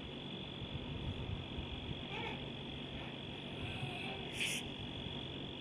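Cloth being handled and folded, with a soft rustle that is briefly louder about four and a half seconds in. A steady high-pitched tone runs underneath.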